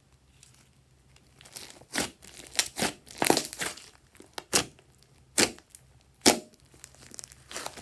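Thick green slime pressed and squeezed by hand, giving a run of sharp pops and crackles, about eight of them, from about two seconds in.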